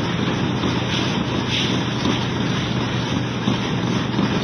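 Steady low hum of a cargo ship's machinery under way, with an even rushing noise over it, heard from inside the wheelhouse.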